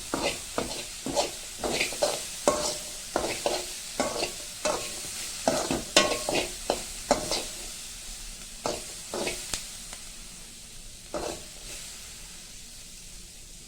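Cutlets sizzling as they fry in oil, with a metal utensil knocking and scraping against the pan over and over for about ten seconds, then once more, while the steady sizzle goes on.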